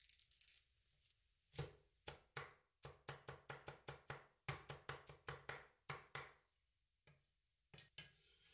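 Cleaver chopping garlic cloves on a wooden cutting board: a run of light, quick chops, about four a second, then a pause and two more chops near the end.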